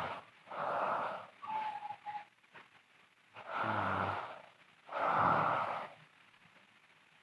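A sleeping girl snoring: slow breaths, one of them with a low rattling snore about halfway through. A brief thin whistle sounds about two seconds in.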